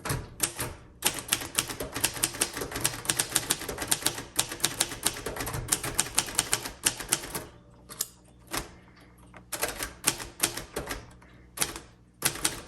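A 1953 Royal Quiet Deluxe manual typewriter being typed on: a fast run of type bars striking the platen for about seven seconds, a short pause, then slower scattered keystrokes and a last quick flurry near the end.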